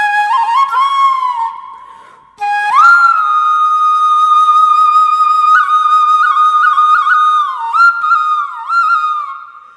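Solo flute playing a slow melody. A held note fades out about two seconds in, then after a short pause a long held note returns, decorated with quick grace notes and slides, and fades away near the end.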